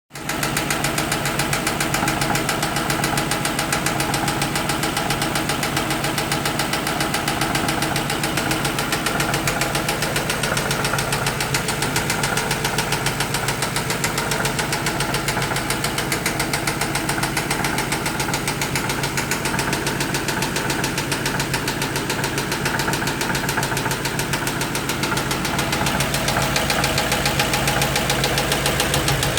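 2008 Ford Mustang Bullitt's 4.6-litre three-valve V8 idling with a rapid, steady tapping from the engine. The cam phaser, VCT solenoid, valve lash adjusters, lifters, coils and spark plugs have all been replaced and the tap remains, its cause unknown.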